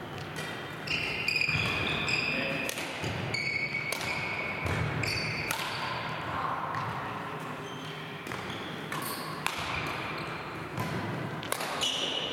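Badminton rallies in a large hall: repeated sharp cracks of rackets hitting the shuttlecock, with short high squeaks of shoes on the wooden court.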